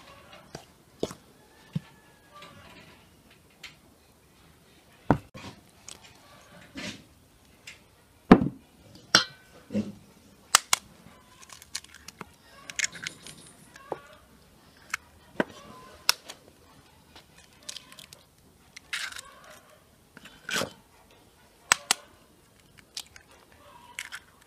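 Sharp clicks and knocks of a metal spoon and egg shells against a stainless steel mixing bowl of flour as dough ingredients go in, the loudest knock about eight seconds in.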